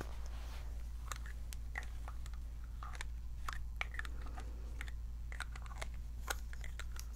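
Scattered light clicks and taps from a spray bottle being handled close to the microphone, irregular and a few each second.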